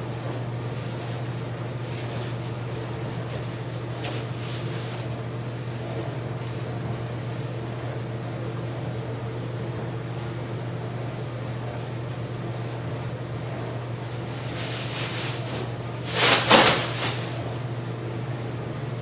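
Plastic trash bag rustling as it is unfolded, then shaken open with a loud rustle near the end. A steady low hum runs underneath.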